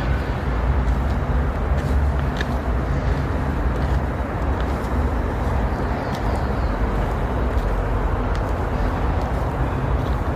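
Outdoor ambience dominated by a steady low rumble, with a few faint, short high chirps.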